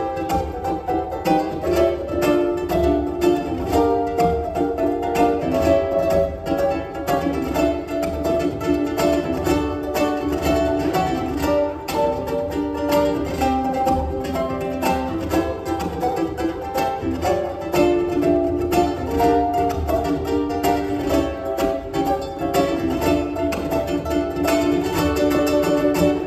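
Two ukuleles played as a duet: a steady stream of quick plucked notes carrying a melody.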